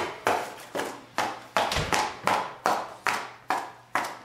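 A small screwdriver stabbed again and again into a piece of cardboard, giving sharp knocks in a steady rhythm of about two and a half a second.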